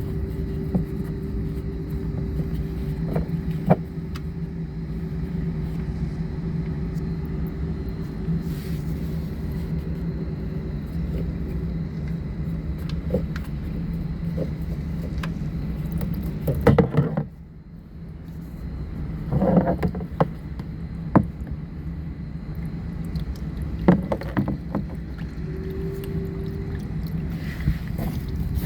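Steady low engine-like hum with a faint higher tone over it, dipping briefly a little past halfway, with a few sharp metallic clicks and clinks of tools.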